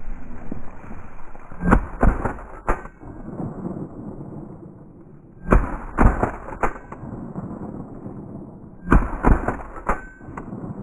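Shotguns firing at a covey of quail: three bursts of sharp shots about three and a half seconds apart, each of two or three shots in quick succession.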